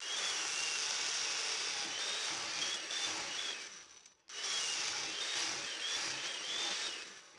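Chain mortiser cutting into a wooden timber, its chain chewing out chips for a brace mortise, with a high whine that wavers in pitch as the cut loads it. It stops briefly about four seconds in, then starts cutting again.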